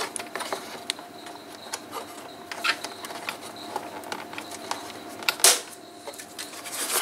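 Plastic heater-housing parts of a Mercedes W123 being fitted and clipped together by hand: scattered light clicks and rubbing, with one louder click about five and a half seconds in.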